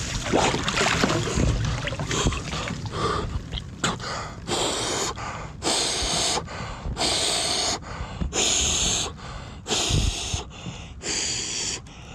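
Water splashing and sloshing as a man surfaces from dunking his head in an ice bath. Then come about six heavy, forceful breaths through the open mouth, roughly one a second: the hard gasping of cold shock in icy water.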